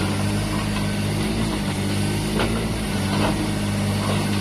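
Mini excavator engine running steadily, with a few sharp knocks from the machine as it digs hard ground.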